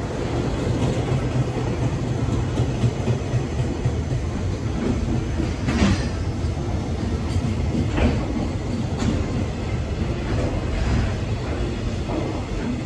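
Container flatcars of a long freight train rolling past at speed, their wheels rumbling and clattering over the rail joints, with a few sharper clacks about six and eight seconds in.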